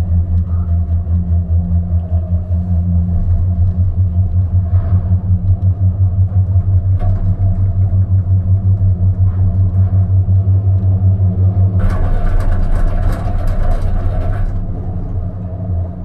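Steady, pulsing low hum and rumble of a La Paz purple-line cable car gondola travelling along its cable, heard from inside the cabin. About twelve seconds in, a louder rushing noise comes in for roughly two and a half seconds, then drops away.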